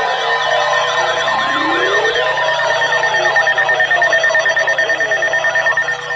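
Many electronic sirens and alarm tones sounding at once, their pitches rising and falling over one another over a few steady tones; a fast-pulsing tone comes in about halfway through.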